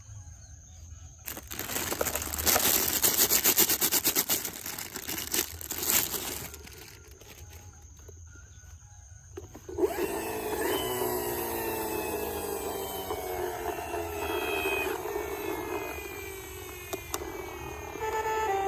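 Toy vehicles being played with: a rattling clatter of plastic for about five seconds, then a few seconds of quiet, then a whirring sound of several sliding tones that fall in pitch over and over.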